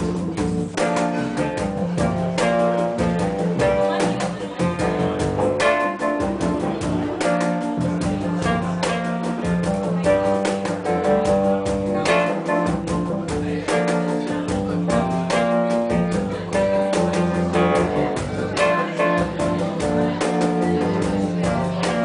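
A small live band playing: electric bass, piano and cajon, the cajon hits keeping a steady beat under the bass and piano notes.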